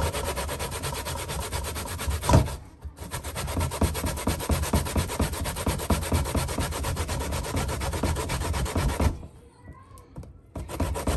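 Sweet cassava root grated by hand on a stainless steel box grater into a metal bowl: rapid repeated scraping strokes, with a single sharp knock about two seconds in and a pause of about a second near the end before the grating resumes.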